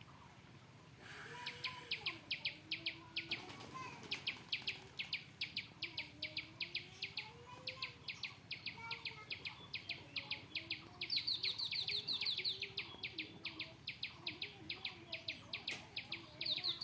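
A bird chirping over and over in a fast, even series, about three or four sharp chirps a second, starting about a second and a half in.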